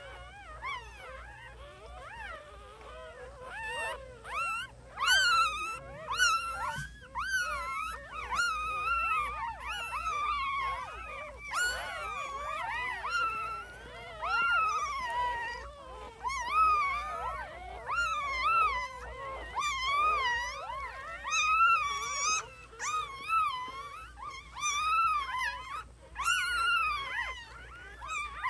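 A litter of newborn puppies crying and squealing, several at once: high, wavering cries that overlap without a break, swelling louder every few seconds.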